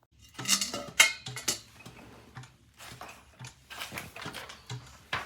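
Irregular clicks, taps and light clatter of hard objects being handled, the loudest about a second in.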